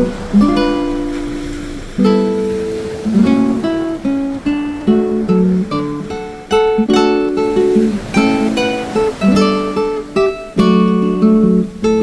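Background music: an acoustic guitar playing plucked and strummed chords, each note struck and then fading.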